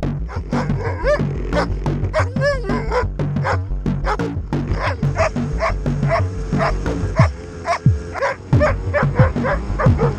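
Electronic music with a steady drum-machine beat, with a German Shepherd barking and yipping over it in short rising-and-falling calls.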